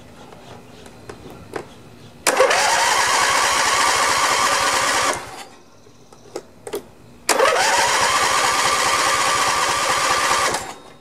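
Electric starter cranking a freshly rebuilt Briggs & Stratton Intek 23 hp V-twin mower engine, choke on, in two tries of about three seconds each. The starter's whine rises and then holds steady before cutting off. The engine does not catch, because fuel is not yet coming through the filter.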